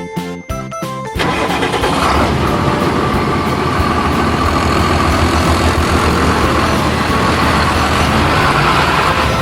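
Light children's music cuts off about a second in, and a truck engine sound effect takes over, running loud and steady with a throbbing low rumble.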